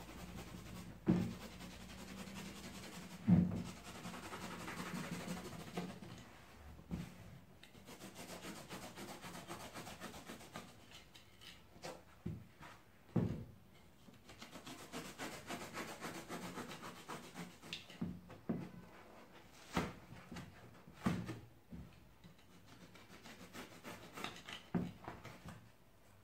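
Utility knife blade cutting through thick foam sponge in long strokes, a rasping rub, with scattered sharp taps throughout.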